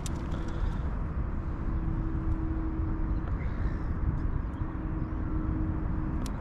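Outdoor lakeside ambience: a steady low rumble on the microphone with a faint, steady distant engine drone that fades out about halfway and comes back.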